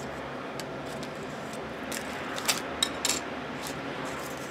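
Light metallic clicks and clinks of piston rings being handled and set on and lifted off a small digital scale: a handful of scattered taps, the sharpest about two and a half seconds in, over a faint steady hum.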